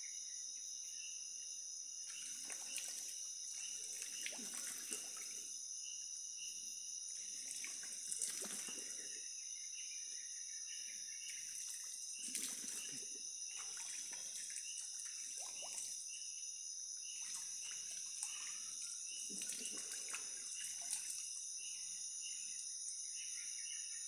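Irregular splashing and scraping every second or two as a person moves about in a shallow, muddy forest stream, over a steady high drone of insects.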